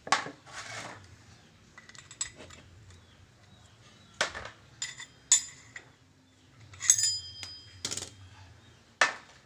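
Sharp metallic clinks and taps, about six of them, a few ringing briefly, as the steel pins are pulled one by one from a Vario 110's CVT pulley.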